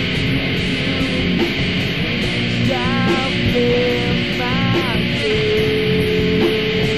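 Heavy punk/metal band recording: distorted electric guitars playing at a steady loud level. A high lead line bends notes twice around the middle, then holds one long note to the end.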